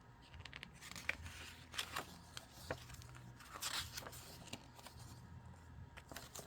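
Paper pages of a booklet being handled and turned: soft rustles and scattered light clicks, with a couple of louder page rustles.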